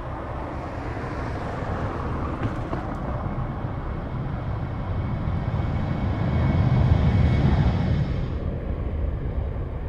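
Boeing 737 twin jet engines at takeoff power during the takeoff roll: a deep rumble and roar that builds, is loudest as the jet passes about seven seconds in, and then loses its high hiss as it moves away.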